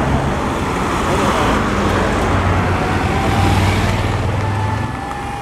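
Outdoor street ambience: vehicle engines and traffic noise with voices mixed in, starting to fade out near the end.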